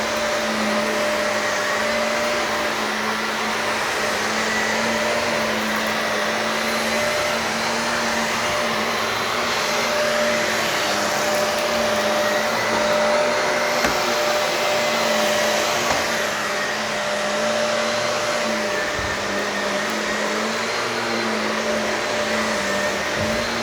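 Shark vacuum cleaner running steadily over carpet: a constant motor hum with a slightly wavering pitch over a rushing hiss of air, with a few faint knocks in the second half.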